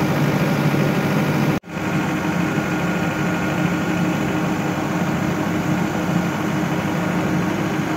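Belt-driven centrifugal induced-draft fan and its electric motor running at speed: a steady hum over a rush of air drawn through the inlet. The sound drops out for an instant about a second and a half in.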